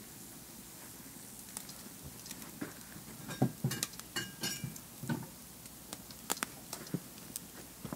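Wood fire crackling and popping under a barbecue grill of ribs: irregular sharp cracks over a faint steady hiss, busiest around the middle, with a few brief thin whistles there too.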